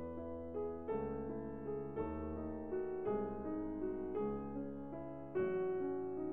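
Background piano music: chords and bass notes struck about once a second, each ringing and fading before the next.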